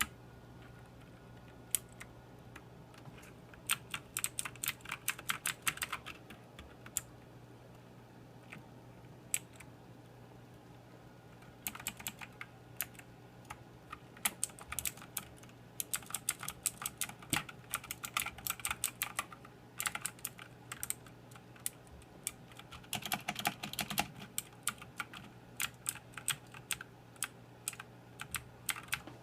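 Motospeed CK104 mechanical keyboard being typed on: quick runs of key clicks broken by single keystrokes, with a pause of a few seconds in the first third. A faint steady low hum sits underneath.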